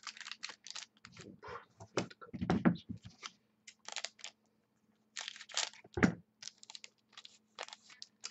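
Trading-card packs being torn open and their cards handled: a run of short tearing and crinkling rustles of wrappers and card stock, with louder scrapes about two and six seconds in.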